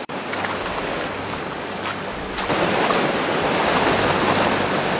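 Fast white water rushing steadily over rocks, as in rapids or the foot of a waterfall, growing louder about two and a half seconds in.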